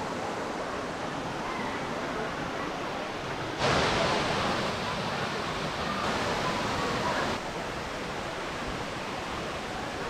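Steady rush of a waterfall and its stream pouring over rocks. It jumps louder and brighter about three and a half seconds in and falls back a few seconds later.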